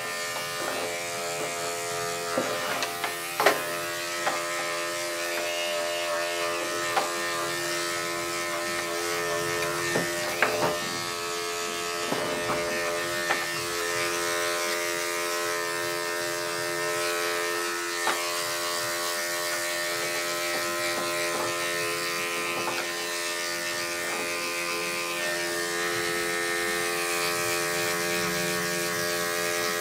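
Corded electric dog clippers running with a steady buzzing hum as they shave through a heavily matted coat, with a few sharp clicks and knocks in the first half.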